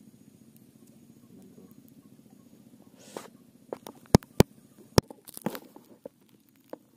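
A low steady hum, then a run of short knocks with three sharp clicks about four to five seconds in, from gear being handled aboard a small wooden boat.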